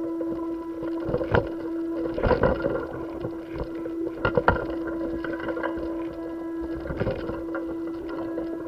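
A steady mid-pitched machine hum with irregular clicks and knocks over it.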